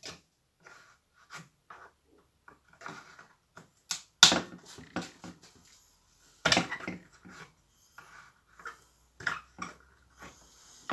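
Clicks and knocks of a hand tool against the plastic and metal of a small two-stroke hedge trimmer engine as it is dismantled, with two louder knocks about four and six and a half seconds in.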